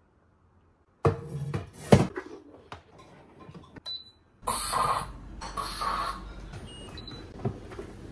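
Electric pressure rice cooker: a clatter of handling with one sharp click, a short high beep as a control-panel button is pressed, then two brief loud bursts of hissing as it vents steam pressure, and another beep near the end.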